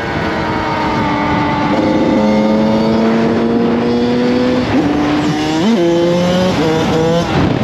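Kawasaki KX100 two-stroke dirt bike engine running on the move at a steady throttle. Its pitch steps down about two seconds in and again near five seconds, as with upshifts, and it is revved up quickly a couple of times near the end.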